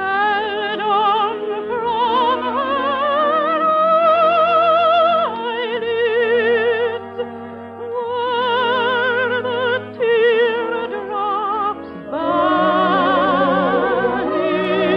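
A classically trained singer with wide vibrato sings sustained phrases over orchestral accompaniment, pausing briefly between phrases about five, ten and twelve seconds in.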